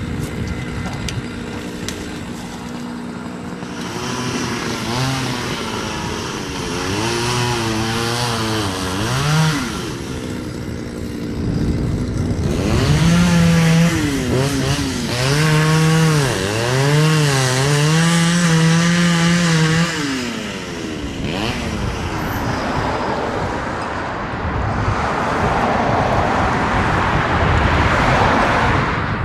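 Chainsaw engine revving up and dropping back again and again as it cuts, in two long spells with a pause between. A steady rushing noise follows near the end.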